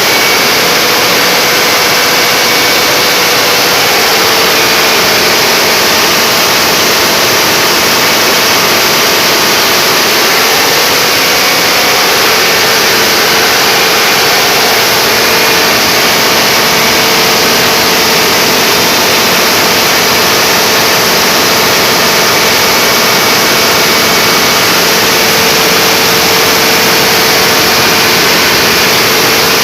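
Standby generator running steadily under a load test, a loud constant engine noise that does not change.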